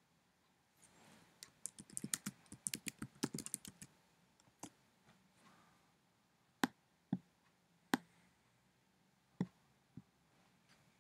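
Typing on a computer keyboard: a quick run of about a dozen keystrokes, the length of the command "adb devices" and Enter. After it come six single clicks a second or more apart.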